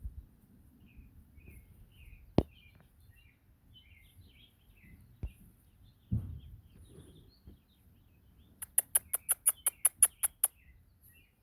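Small birds chirping here and there, with a couple of sharp clicks and a soft thump. Near the end comes a loud, even run of about a dozen very high-pitched ticks, six or seven a second, lasting about two seconds.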